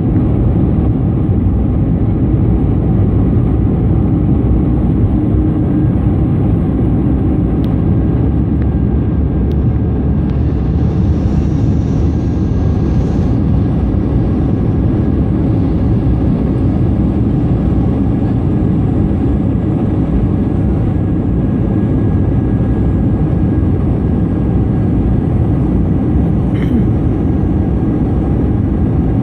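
Steady cabin noise of an Airbus A220-300 in flight: the rush of airflow over the fuselage and the drone of its Pratt & Whitney PW1500G geared turbofans, heard from a window seat, with a faint steady whine above it.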